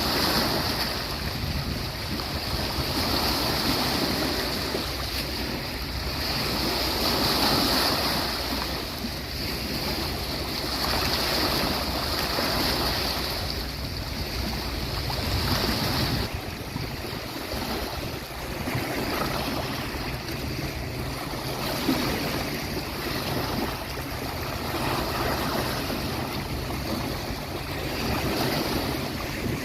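Sea waves breaking and washing on a beach shore, the surf rising and falling every few seconds. A steady high hiss runs under it and stops about sixteen seconds in.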